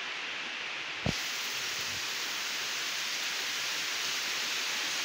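Steady rain falling, an even hiss, with a brief knock about a second in.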